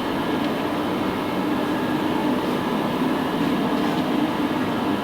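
Steady mechanical hum with a constant low droning tone.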